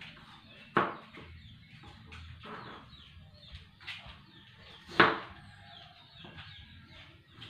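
Chickens clucking, with two sharp, loud calls: one about a second in and a louder one about five seconds in.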